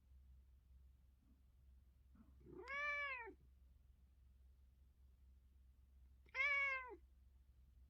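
Domestic cat meowing twice, a few seconds apart, each a single call that rises and falls in pitch, the second a little louder. It is meowing to wake its owner in the morning.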